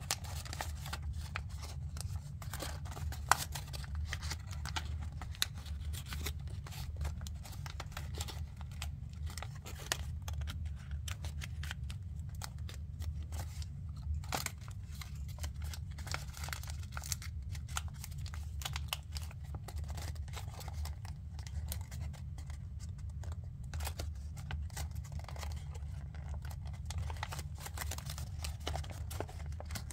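Paper being folded and pinched by hand on a many-layered origami model: irregular crinkles and crackles of the creasing paper, with one sharper snap about three seconds in, over a steady low hum.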